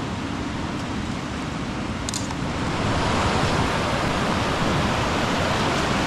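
Mountain stream rushing steadily, growing a little louder about two and a half seconds in.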